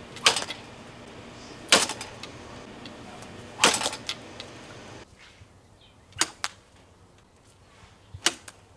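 Replica katana blade striking hanging rope targets: three sharp cuts, one every one and a half to two seconds, then a few fainter clicks.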